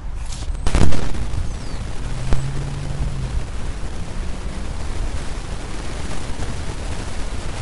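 Wind buffeting the camera's microphone, a steady blustery rush heavy in the bass, with a louder thump about a second in.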